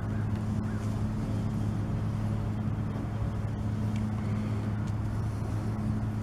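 Steady low mechanical hum of a running motor, an even drone that holds without change.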